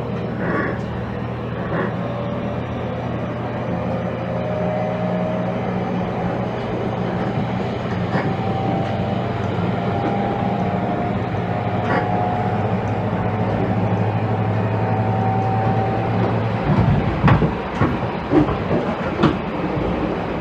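JR Kyushu 813 series electric train heard from inside the motor car while running, with the Toshiba GTO VVVF inverter and traction motors humming steadily. About three-quarters of the way in the hum cuts off as power is shut off and the train coasts, leaving the wheels clacking over rail joints.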